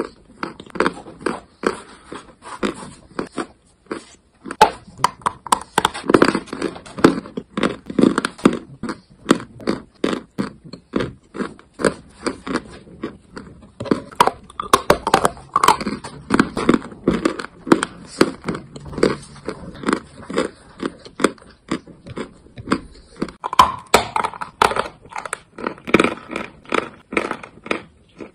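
Chalk being crunched close to the microphone: a dense, irregular run of sharp crunches and crackles.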